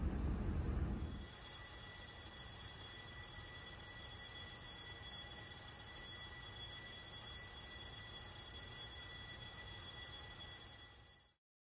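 Electric fire-alarm bell ringing continuously as the fire-fighting alarm is tested, a steady high ringing that starts about a second in after a low rumble and cuts off suddenly near the end.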